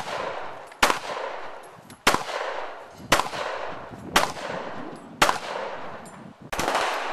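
A string of pistol shots fired one at a time, about one a second, each sharp crack followed by a fading echo.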